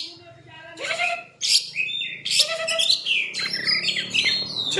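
Oriental magpie-robin (kacer) singing a varied song of rapid whistles, sweeping notes and trills, starting about a second in after a brief pause.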